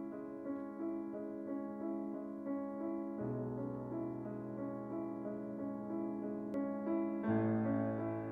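Slow background piano music: held chords over a bass line, moving to a new chord about three seconds in and again near the end.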